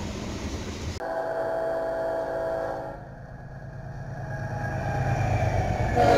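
Freight train tank cars rolling on the rails, then after a cut a diesel locomotive's multi-chime horn sounds for about two seconds. The horn stops, the rumble of the approaching locomotive builds, and the horn sounds again, louder, near the end.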